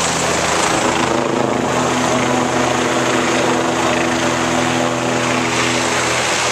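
Police helicopter overhead, its rotor and engine running with a steady drone.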